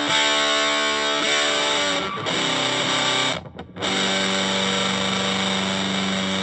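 Electric guitar through an Electro-Harmonix Big Muff fuzz pedal and an Orange Crush 35RT amplifier, playing heavily distorted, sustaining chords. The sound cuts out briefly about three and a half seconds in, then a new chord is struck and held.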